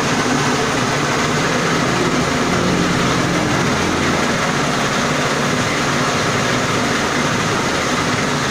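Small single-cylinder petrol engine running steadily, belt-driving a dry-coffee huller. Its even hum is mixed with a broad, unbroken mechanical noise from the huller's spinning rotor.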